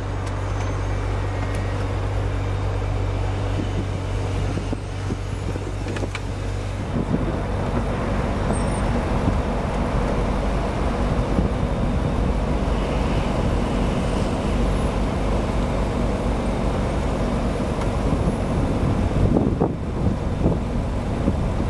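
Ferrari California's power-folding hard top closing: a steady mechanical whirr and hum from the roof mechanism. The tone shifts about seven seconds in as the panels swing over, and there are a few short knocks near the end.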